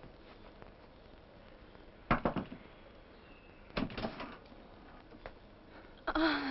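Two short clusters of knocks and clatters, one about two seconds in and another about four seconds in, over quiet room tone. A voice begins near the end.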